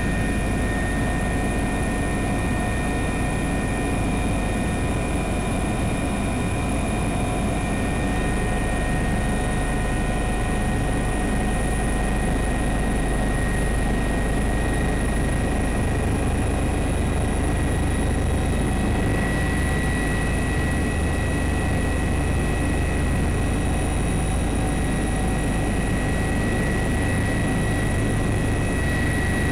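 Steady drone of a helicopter's engine and rotors heard from aboard, a constant rumble with several high, steady whining tones over it.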